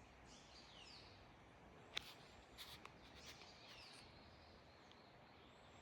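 Faint wild bird calls, short chirps sliding down in pitch, over a very quiet forest background. A sharp click about two seconds in, followed by a few softer clicks.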